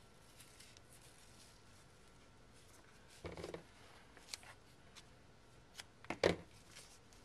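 Faint rustling and small clicks of a satin ribbon and paper card being handled while a bow is tied, with a short soft knock about three seconds in and a sharper cluster of knocks just after six seconds, the loudest sound, as the card is handled on the cutting mat.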